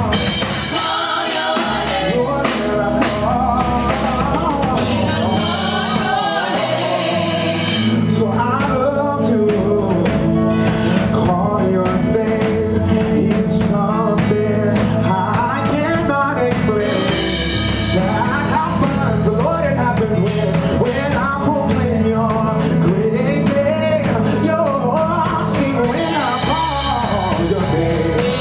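Music: a song with a singing voice over a full band with drums and bass.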